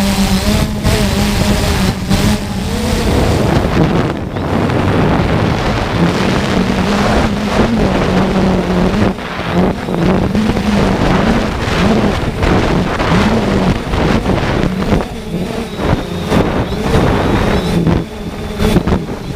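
3DR Solo quadcopter's motors and propellers whirring, their pitch wavering up and down as they fight gusty wind, with wind rushing over the microphone.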